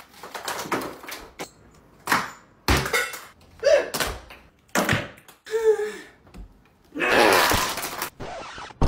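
Plastic Easter eggs thunking and clattering onto a hardwood floor and against the walls in a string of short knocks, with a long loud strained yell from a man about seven seconds in.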